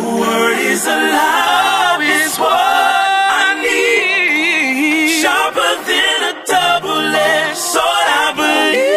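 Several voices singing gospel-style harmonies, with almost no instrumental backing.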